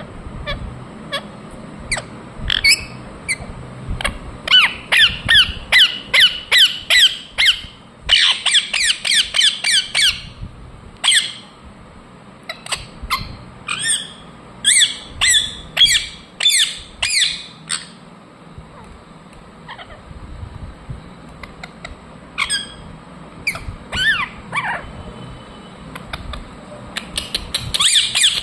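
Ringneck parrot calling: short, high squawking calls in fast runs of several a second, broken by quieter gaps between the runs.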